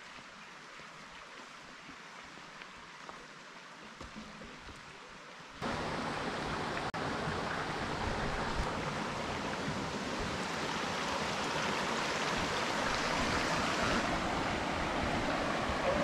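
Water of a rocky forest stream rushing over stones, a steady hiss. It is faint at first, then jumps louder about five and a half seconds in and keeps growing slowly.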